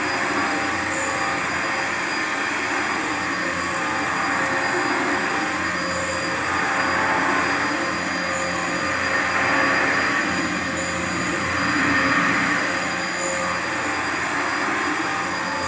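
Dyson vacuum cleaner running steadily, a continuous motor whine and airflow rush that rises a little in level a few times.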